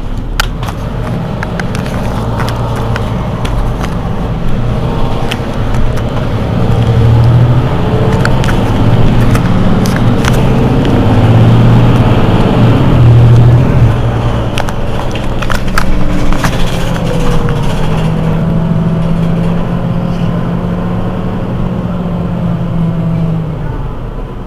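Diesel engine of a Mercedes-Benz Citaro C2 city bus idling at a stop: a steady hum that swells louder in the middle, with scattered sharp clicks.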